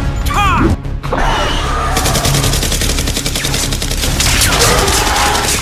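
Rapid automatic gunfire, a fast even string of shots about ten a second, starting about two seconds in, over background music.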